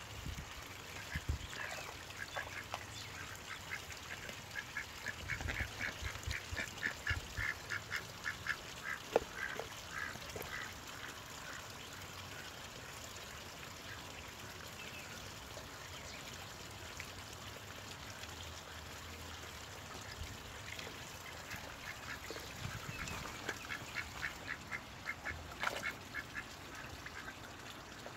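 Rouen ducks calling in quick runs of short quacks, about five a second. A long run starts about a second in and lasts roughly ten seconds, and a shorter run comes near the end. A couple of sharp clicks sound among the calls.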